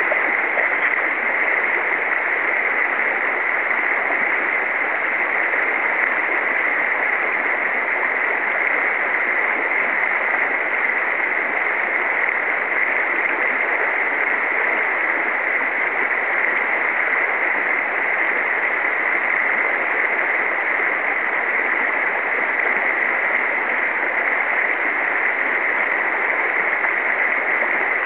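Steady rushing of a river current over a shallow, choppy riffle.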